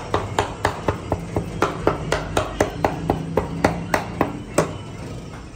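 A quick run of sharp, evenly spaced knocks, about four a second, that stops about four and a half seconds in.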